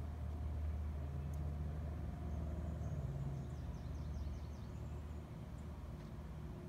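Outdoor ambience of a steady low rumble, with a songbird in the trees singing a rapid run of short, high, down-slurred notes from about two to four and a half seconds in.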